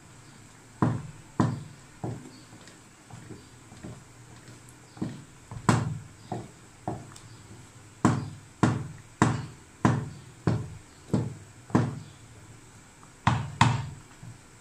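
Wooden spoon beating and mashing thick, bubbling chicken daleem in an aluminium pot: a run of dull knocks and wet slaps, about eighteen of them, coming more evenly, about two a second, in the middle stretch. It is the mashing (ghota) that breaks down the lentil grains as the daleem thickens.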